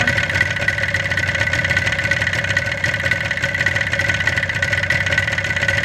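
A 1977 Yamaha RD400's air-cooled two-stroke parallel twin idling steadily while its Mikuni carburettors' idle mixture screws are set to one turn out, the lean end of the idle adjustment.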